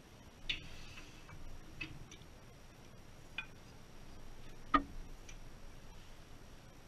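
Scattered light clicks and clinks of metal turning tools and lathe fittings being handled at a stopped wood lathe, with one sharper knock about three-quarters of the way through.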